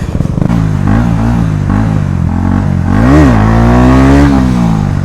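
KTM Duke motorcycle engine under way with its exhaust removed, very loud. It runs steadily, gives a quick rev up and down about three seconds in, then climbs in pitch for about a second before dropping off.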